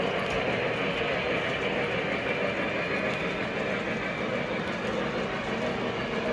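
Model train running on the layout's track: a steady hum of the motor with the rumble of wheels on the rails.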